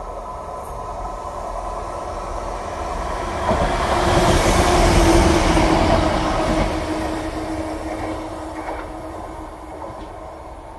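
GWR Class 165 Turbo diesel multiple unit passing through at speed: its rumble and wheel noise build, are loudest from about four to six seconds in, then fade away. A steady hum rides over the noise as it goes by.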